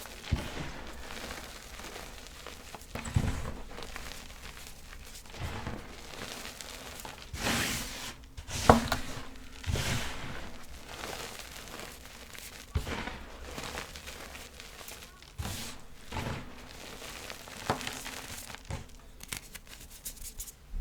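Small chunks of reformed gym chalk crunching and crumbling in irregular bursts, with a sharp snap about nine seconds in.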